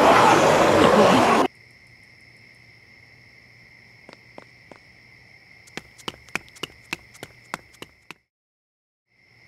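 A loud rushing noise cuts off suddenly about one and a half seconds in, giving way to crickets chirping steadily at night. Over the crickets come a few soft footsteps, then a quicker run of sharper footsteps on pavement, about three to four a second. Near the end all sound drops out for about a second before the crickets return.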